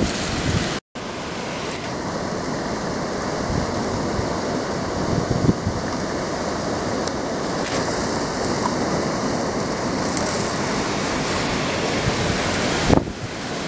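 Hurricane-force wind and driving rain: a loud, steady rushing noise with gusts buffeting the microphone, broken by a short gap about a second in.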